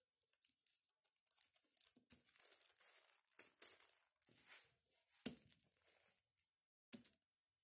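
Faint rustling and crinkling of a clear plastic A4 filing sheet and paper sugar sticks being handled and moved, with two short knocks, the louder about five seconds in and another near the end.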